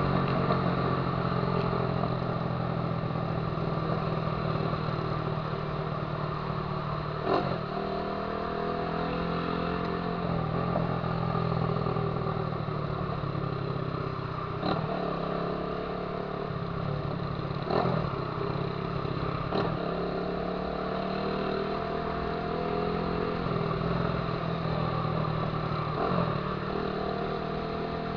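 Honda CG 150 Titan motorcycle's single-cylinder four-stroke engine running through a 'viúva-negra' aftermarket exhaust while riding. The engine note climbs steadily, then breaks and climbs again about six times, as with throttle and gear changes.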